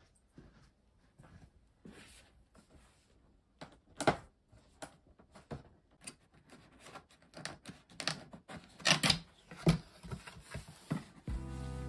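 Cardboard box being opened by hand: the tape seal on the lid picked and peeled off, then the lid and inner cardboard flaps lifted, giving an uneven run of taps, scrapes and rustles. The loudest handling comes about four seconds in and again between eight and nine and a half seconds in.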